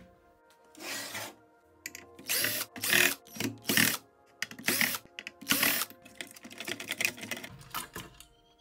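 Irregular short bursts of rattling and scraping from handling a stereo's metal chassis and circuit boards during disassembly.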